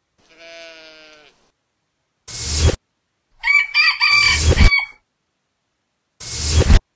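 A rooster crowing once, loud and broken, about halfway through. Before it comes a fainter pitched call about a second long, and on either side are two short rising bursts of noise that cut off sharply.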